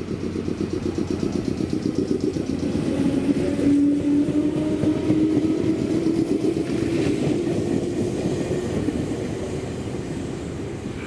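An electric train passing close by: a rapid, even clatter of wheels on the rails with a steady tone that rises slightly in pitch, then fades toward the end.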